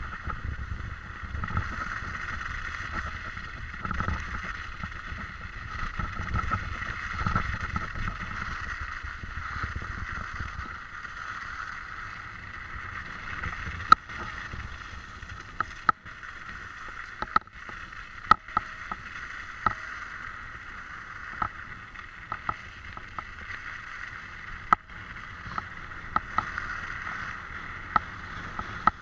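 A small vehicle driving along a snowy dirt track: its motor runs with a steady whine over a low rumble from the tyres. Sharp clicks come from about halfway through.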